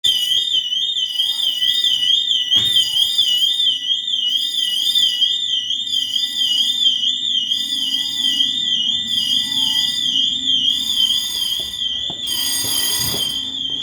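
Fire alarm sounding during a system test: an electronic siren warbling rapidly around one high pitch, over steadier high ringing tones.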